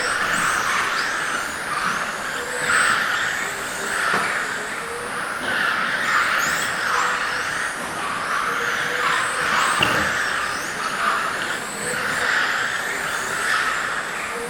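Electric RC GT cars with 17.5-turn brushless motors running laps. The motors give a high whine that glides up and down, and tyre hiss swells and fades as cars pass, about once every second or two.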